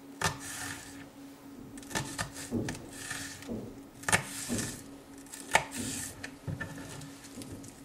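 Kitchen knife slicing leek into fine julienne strips on a plastic cutting board: irregular sharp taps of the blade reaching the board, one or two seconds apart, the loudest about five and a half seconds in. A faint steady hum runs underneath.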